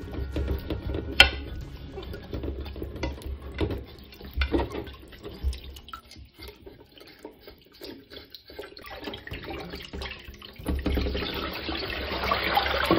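Kitchen tap running onto a raw whole chicken in a glass bowl in a stainless-steel sink, with small knocks and knife scraping as the skin is cleaned. There is a sharp knock about a second in, and louder splashing near the end as the bowl fills and is rinsed.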